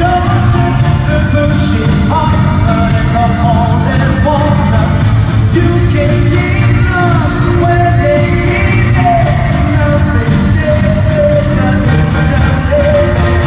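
Pop song performed live: a singer's voice carried over a loud backing track through an arena sound system.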